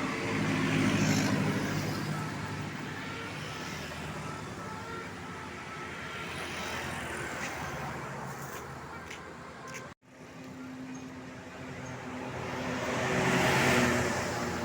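Road traffic driving past close by, with engine hum and tyre noise swelling as vehicles pass about a second in and again near the end. The sound drops out suddenly for a moment about ten seconds in.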